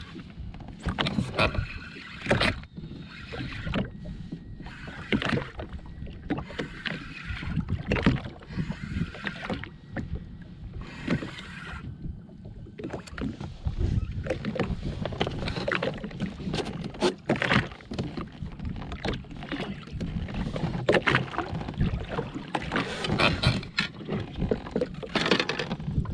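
Water slapping against a Sea-Doo jetski's hull, with many short knocks and repeated one-second rushes of hiss, while a fish is played and reeled in on rod and spinning reel.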